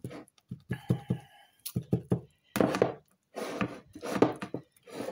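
Metal spoon stirring a stiff flour, egg and boiling-water dumpling dough in a plastic bowl, knocking and scraping against the bowl in an uneven run of thunks, with a short squeal about a second in.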